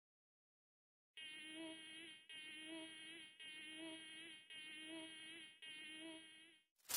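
Mosquito buzzing sound effect: a faint, thin pitched buzz that wavers slightly, starting about a second in and repeated as a short loop five times with brief gaps.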